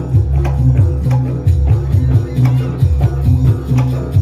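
Jaranan music played loud through a sound system: deep bass notes changing pitch under a steady drum beat with tambourine-like jingles.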